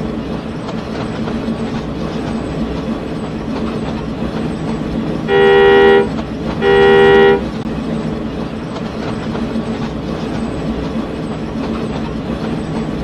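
Dubbed train sound effects: a locomotive running steadily, with two loud toots of its horn a little over a second apart, about halfway through.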